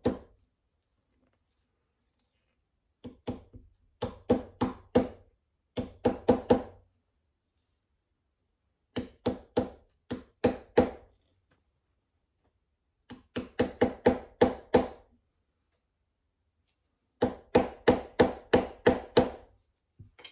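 Small hammer tapping a brass wedge into the slotted top of a curly cherry handle to lock on a brass hammer head. The light taps come in six quick runs of about four a second, with pauses between, and each tap rings with a metallic tone.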